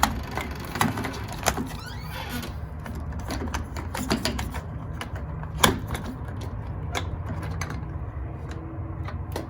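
Reassembling a Schlage keypad deadbolt: irregular clicks and taps of its plastic and metal parts being fitted and handled, with one sharper knock about halfway through, over a steady low hum.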